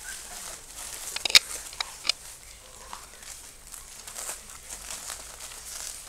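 Crinkling and rustling of the whelping box's pad and blanket bedding as puppies walk on it and are handled, with a few sharp crackling clicks about a second in and again about two seconds in.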